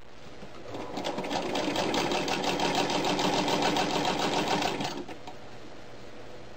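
1937 Singer Model 127 sewing machine, driven by its electric motor, sewing a straight stitch. It speeds up about a second in to a rapid, even ticking of stitches and stops about five seconds in.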